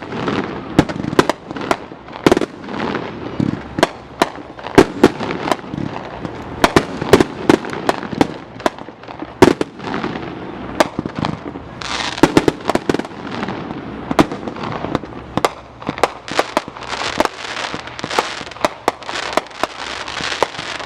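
Fireworks going off: a dense run of sharp bangs and pops, several a second, with stretches of crackle about twelve seconds in and again near the end.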